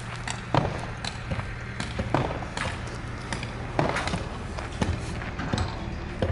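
Footsteps on dirt ground: irregular thuds about every half second to a second, over a steady low hum.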